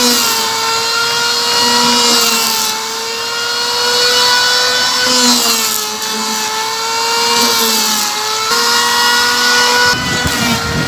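Electric hand planer running as it is pushed along the wooden edge of a plywood boat hull, a steady high motor whine that dips slightly in pitch a few times as the blades bite into the wood. The motor stops near the end.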